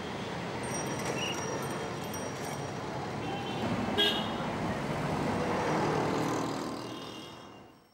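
City street traffic: a steady wash of passing vehicles with scattered short horn toots, the sharpest about four seconds in. It fades out near the end.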